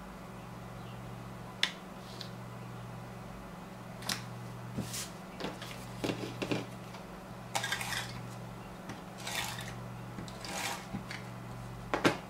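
Tape runner pressed and drawn across card stock laying adhesive, with paper pieces handled on a cutting mat: several short scratchy swipes and light taps, the loudest tap near the end.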